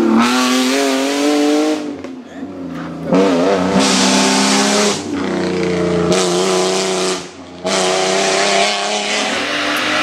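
Rally car engines revving hard as the cars drive past and through bends, the pitch climbing and falling with throttle and gear changes. The sound comes in several short takes that cut off abruptly a few times.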